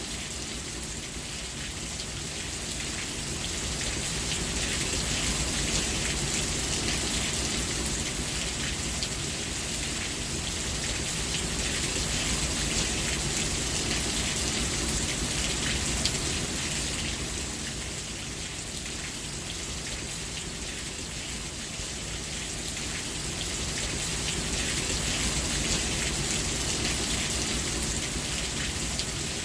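Steady rainfall with dense patter of drops on surfaces, gently swelling and easing in intensity.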